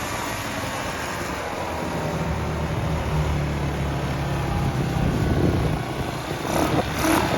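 Cheap Chinese quad with a GY6 single-cylinder four-stroke scooter engine running as it is ridden. The engine hum is steady and grows louder for a few seconds in the middle, over a constant rush of noise.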